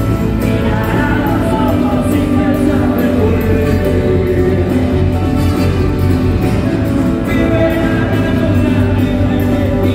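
Live rock band playing loud, with electric guitars and drums and a man singing over them.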